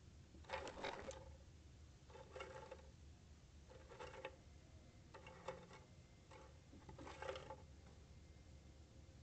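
Greater roadrunner at its nest giving five faint, short, dry rattles, about one every second and a half.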